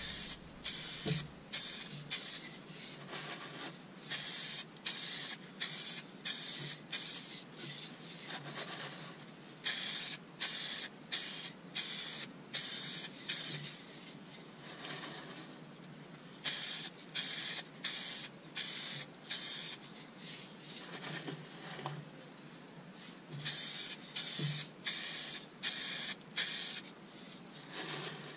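Aerosol can of polyurethane spraying a finish coat in short hissing bursts of about half a second each. The bursts come in runs of five or six, with pauses of a few seconds between runs.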